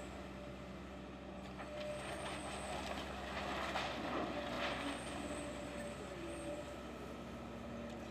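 Link-Belt excavator's diesel engine running steadily while its long-reach arm tears at the building, with several crunches and clatters of falling debris, the loudest about four seconds in.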